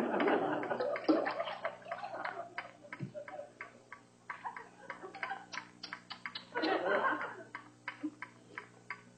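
Water dripping through a leaking roof, a run of irregular drips a few times a second. Two louder swells of noise come at the start and again about seven seconds in.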